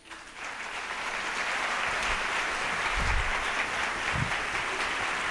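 Theatre audience applauding after a song ends: a steady wash of clapping that swells up within the first half second and holds. A few dull low thumps are heard about three and four seconds in.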